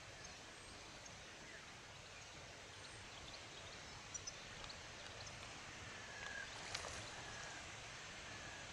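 Faint outdoor ambience: a steady hiss with a few faint short chirps scattered through it, and one sharp click about seven seconds in.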